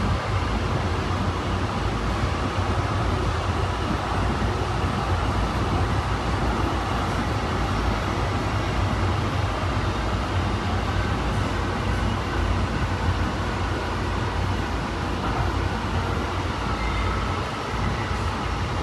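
Steady running noise heard inside a Honolulu Skyline driverless electric metro car under way: a continuous low rumble of steel wheels on rail with a faint whine above it.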